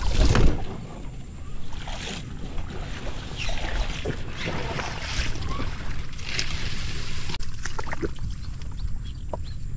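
A small boat being hauled by hand through dense floating water plants: leaves and stems rustle and swish against the hull in irregular bursts, over a low rumble of wind on the microphone.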